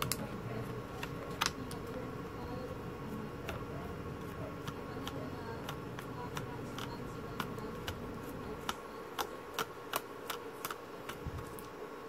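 Irregular light clicks and taps from a soldering iron and a TV power-supply board being handled while the heatsink-mounted MOSFET is desoldered, coming more often in the second half, over a faint steady hum.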